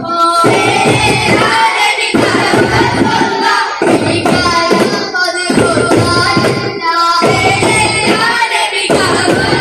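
Daff muttu: a chorus of boys singing while beating daf frame drums by hand in a steady rhythm.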